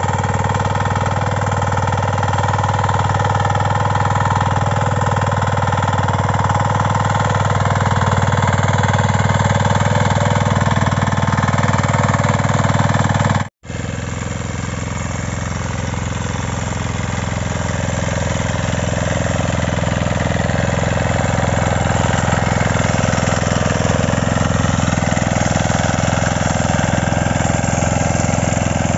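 5.5 HP single-cylinder diesel power weeder engine running steadily under load while its rotary tines till the soil. About halfway through the sound cuts out for a moment, then a second weeder engine runs on with a slightly different note.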